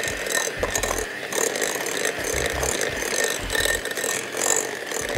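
Electric hand mixer running steadily, its motor whirring and its beaters rattling in a glass bowl as it creams butter, sugar and eggs into cake batter.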